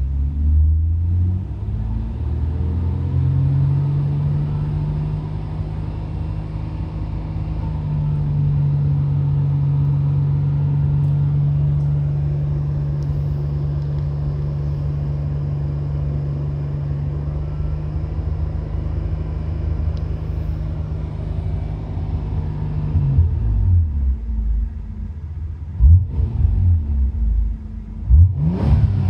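Nissan Skyline GT-R R33's RB26DETT twin-turbo straight-six idling steadily at a raised cold idle, its first run after about six months laid up. About 23 seconds in the idle drops lower, and near the end the engine is blipped twice, the revs rising and falling quickly.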